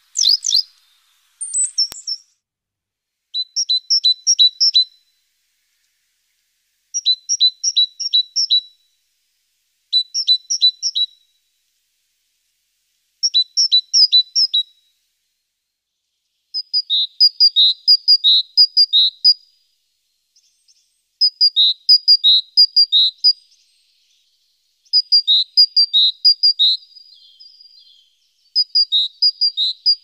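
A small songbird singing: short phrases of quick, evenly repeated high notes that alternate between two pitches, with a new phrase every three seconds or so.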